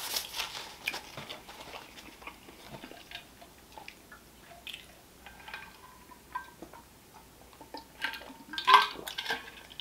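Quiet eating and drinking sounds: scattered small mouth clicks and chewing, then swallows of water drunk from a bottle, with a louder, brief sound near the end.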